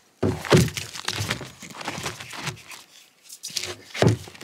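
Irregular crinkling and rustling handling noise with small crackles, in two spells with a short lull about three seconds in.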